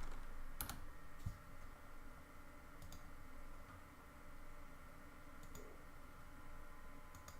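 A few scattered, faint clicks from a computer keyboard, over a faint steady background hum.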